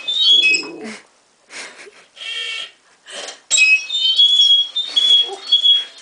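Exercise bike squeaking as it is pedalled, in short high notes that repeat at the same few pitches. The squeaks stop about a second in and start again about three and a half seconds in, with a few short noisy bursts in the gap.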